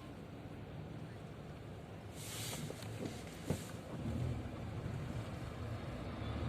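Car engine running, heard inside the cabin as a low steady rumble that grows a little about four seconds in. There is a short hiss about two seconds in and a sharp click about three and a half seconds in.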